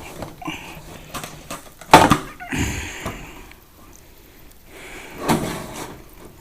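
Hard plastic parts of a salon hood hair dryer knocking and clattering as they are handled: one sharp knock about two seconds in, a short rattle right after, and another knock about five seconds in.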